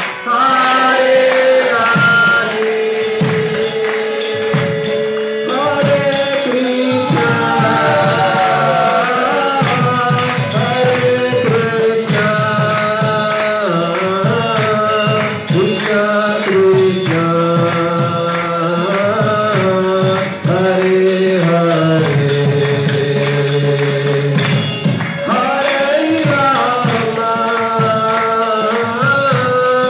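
Devotional kirtan music: a held, gliding melody line with singing voices, over a steady beat of jingling metal percussion.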